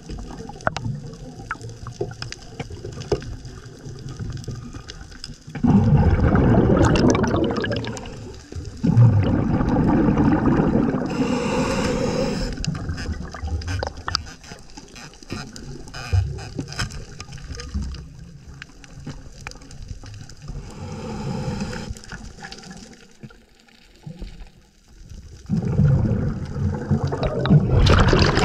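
A scuba diver's breathing underwater: exhaled bubbles from the regulator gurgling past the camera in loud rushes, about six and nine seconds in and again near the end, with quieter water noise between.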